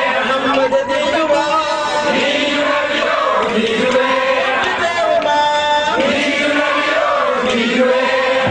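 A group of men's voices chanting a devotional Mawlid song together, a continuous wavering melody.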